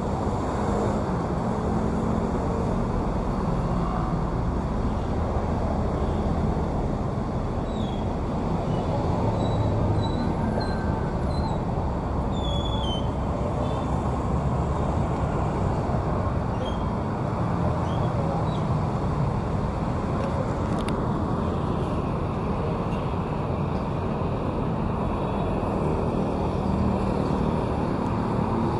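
Busy city road traffic: a steady rumble of passing vehicles. A few faint high chirps come through near the middle.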